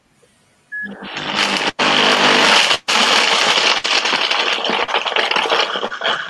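A short beep about a second in, then a 2-horsepower Royal Prestige power blender running at full speed, crushing ice in its jar as a tamper pushes the cubes down. The loud grinding noise breaks off for an instant twice.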